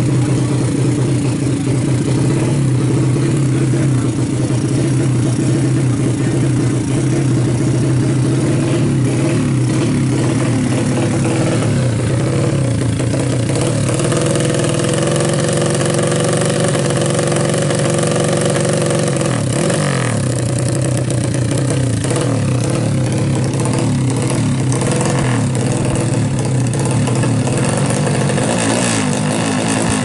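Yamaha Jupiter Z single-cylinder four-stroke engine, bored up to 200cc, running loud through an open racing exhaust. It idles fast, and its pitch shifts around the middle and dips and rises again about twenty seconds in.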